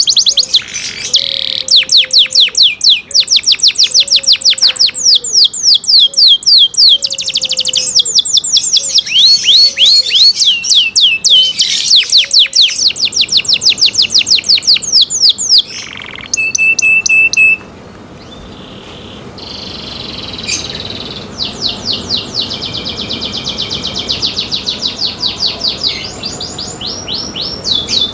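Domestic canary singing in long, fast trills of rapidly repeated sweeping notes, with a short steady whistled note about sixteen seconds in. The song becomes much quieter after about eighteen seconds, still in fast trills.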